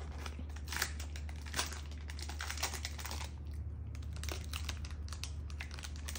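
Plastic snack-bar wrapper crinkling and tearing in quick, irregular crackles as it is worked open by hand and with the teeth.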